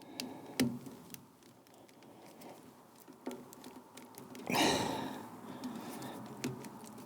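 Hands working on a tractor wiring harness and its multi-pin connector plug: scattered small clicks and taps, with one louder rustling scrape about four and a half seconds in.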